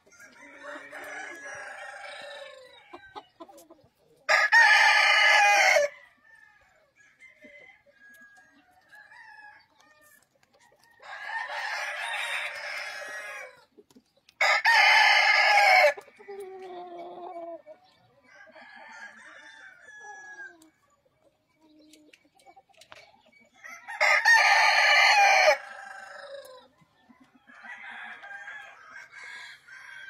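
Roosters crowing: three loud crows about ten seconds apart, each about a second and a half long, with quieter calls from other chickens in between.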